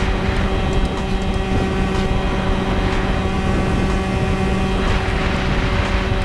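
Tuned Yamaha Jog scooter's two-stroke engine held at steady high revs at full throttle near its top speed.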